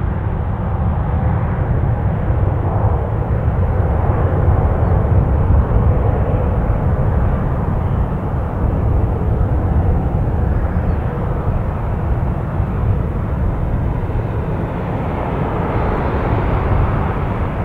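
Airbus A320neo-family airliner's Pratt & Whitney geared turbofan engines at takeoff thrust: a steady, heavy jet rumble through the takeoff roll, rotation and initial climb.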